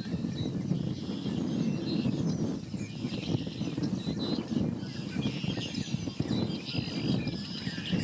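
Several birds calling at once: a busy mix of high, short chirps and twittering calls, over a steady low rumble.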